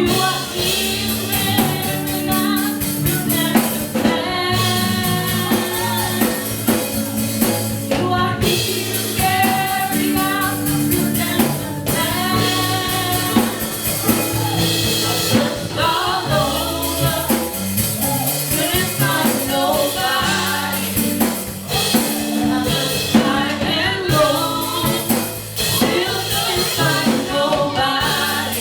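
Live contemporary gospel worship music: singers with a band of drum kit, bass and keyboard playing a steady beat.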